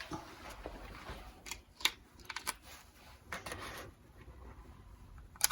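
Irregular small clicks and taps of hands handling a small plastic pocket radio, with a few sharper clicks about two seconds in and a louder one at the end.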